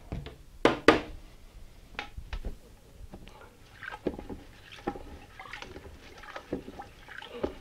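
Kitchen handling sounds: two sharp clinks about a second in, then scattered light knocks and taps as utensils and containers are handled, with faint liquid sounds.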